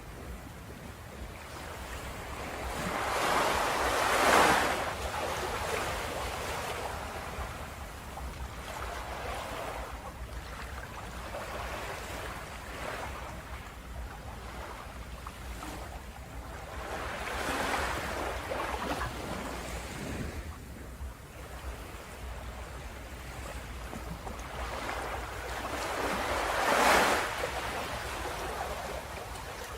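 Ocean waves breaking on a shore, a steady rush of surf that swells three times as waves break: strongly about four seconds in, more gently midway, and strongly again near the end.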